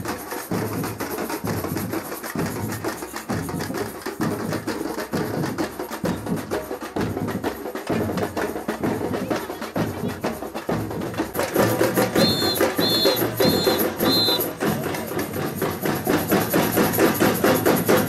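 Batucada samba percussion group playing a fast, steady drum rhythm. About two-thirds through, four short high whistle blasts sound, the leader's cue, and the drumming grows louder and fuller.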